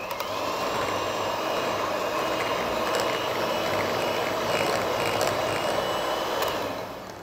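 Philips electric hand mixer running steadily with its beaters in a glass bowl, creaming margarine and sugar until the sugar dissolves. It switches off and winds down near the end.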